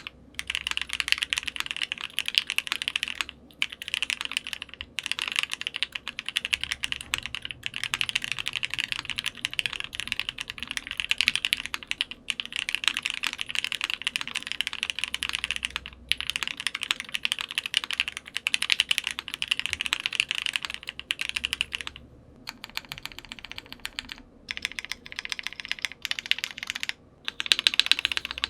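Typing on a Metakey TENET70 mechanical keyboard with a polycarbonate plate, lubed Gateron Ink Black linear switches and GMK keycaps: fast, continuous key clacks in long runs, broken by a few short pauses and a lighter, sparser stretch near the end.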